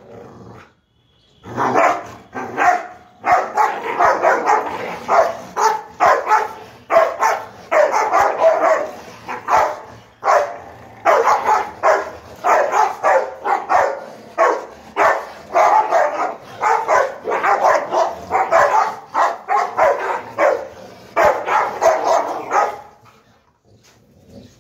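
Two Rottweilers barking and growling in rapid, near-continuous bursts as they wrestle. The bursts start about a second and a half in and stop shortly before the end.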